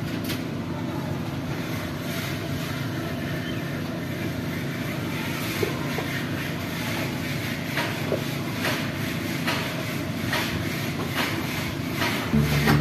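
A cat chewing and eating rice from a plastic plate close by, as faint short wet clicks about once or twice a second, over a steady low background rumble. Strummed acoustic guitar music starts near the end.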